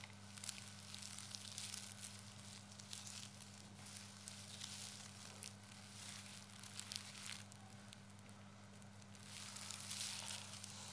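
Crinkling and rustling of thin strips of shiny tape being handled and wound around the head, with scattered small clicks, over a steady low electrical hum.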